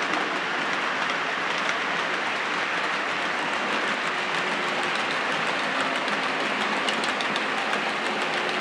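Model trains running on Hornby set track: a steady whirr of small motors and wheels, with faint fine clicking as the wheels cross the track joints.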